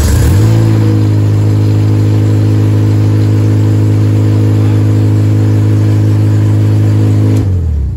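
Acura RSX Type S race car's 2.0-litre four-cylinder engine catching and settling into a steady, loud run through its homemade exhaust, then shut off about seven seconds in, winding down.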